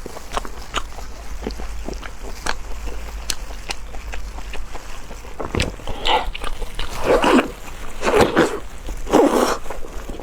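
A person eating close to the microphone: chewing with many small wet mouth clicks, and three louder, longer mouthfuls or slurps in the second half.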